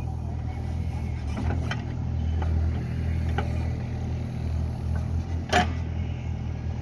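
JCB digger's diesel engine running steadily, with a few short sharp knocks over it, the loudest about five and a half seconds in.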